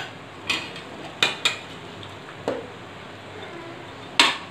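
Steel spoon clinking and scraping against aluminium pots as curry gravy is spooned onto layered rice in a pressure cooker. About five short sharp clinks, the loudest near the end.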